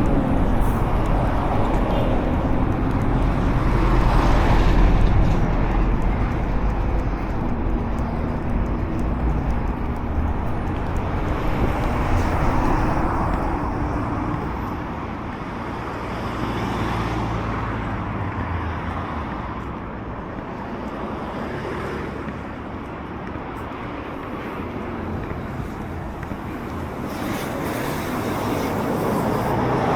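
Road traffic: vehicles passing on a street, a steady rumble of tyres and engines that swells and fades several times as vehicles go by.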